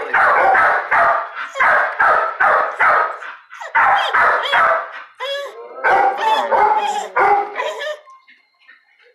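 Dogs barking in quick runs of several barks each, falling quiet about a second before the end.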